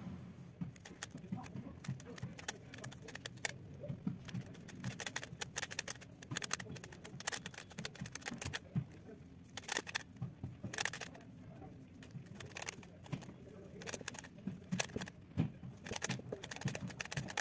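Rubik's cube being solved by hand: its plastic layers turning in quick, irregular runs of clicks and clacks.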